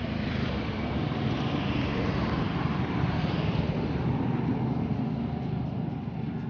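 Road traffic: a steady vehicle engine hum with the noise of a passing vehicle, a little louder about two to four seconds in.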